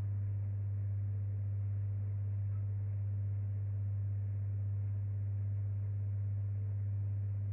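A steady low hum on one unchanging pitch, with nothing else heard over it.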